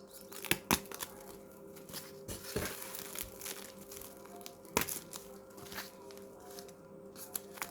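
Cardboard and wrapping being torn and crinkled by hand as packaging is pulled open, with a few sharp snaps and clicks along the way.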